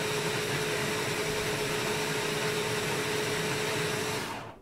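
Hand blender motor running steadily on a mini-chopper bowl, blending green curry paste: a steady whir with one held hum, cutting off near the end.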